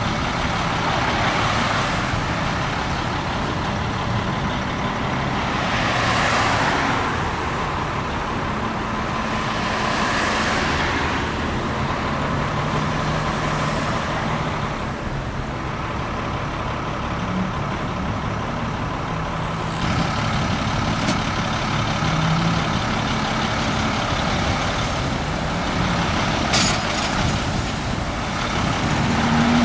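Road traffic: vehicles passing one after another, each swelling and fading, over a steady low engine hum. A few short clicks or clanks come in the second half.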